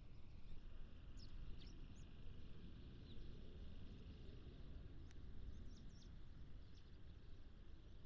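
Eurasian tree sparrows giving a few scattered, short, faint chirps over a steady low background rumble. One sharp click about five seconds in.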